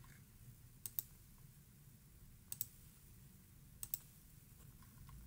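Computer mouse clicking three times, about a second and a half apart, each click a quick double tick of press and release, over a faint low hum.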